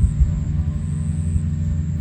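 Background ambient music with steady, low droning tones.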